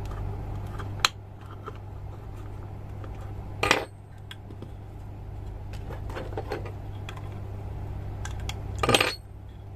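Small plastic and metal parts of an opened air pressure switch clicking and clattering as they are handled: a sharp click about a second in, then two louder short clatters, one near four seconds and one near nine, over a steady low hum.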